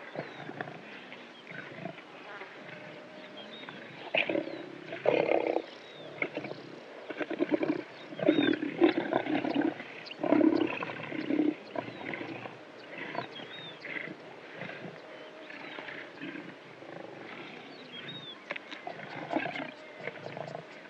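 Well-fed lions growling, panting and groaning in repeated bouts, loudest about four to six seconds in and again from about eight to eleven seconds.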